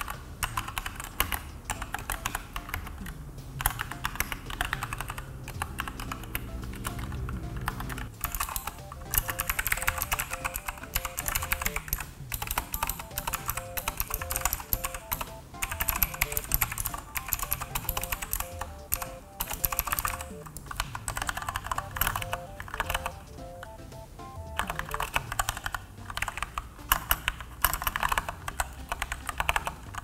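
Fast, continuous typing on Keychron K2 mechanical keyboards, heard in turn with red linear switches, blue clicky switches and brown tactile switches. A dense run of key clacks over background music.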